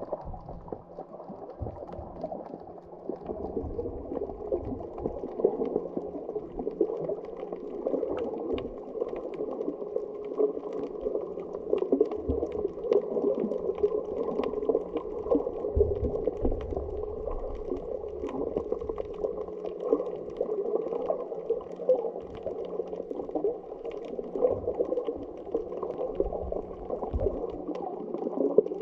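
Muffled underwater sound through a camera's waterproof housing: steady bubbling and water movement, dull and cut off above the midrange, with a faint steady low hum and a few low thuds.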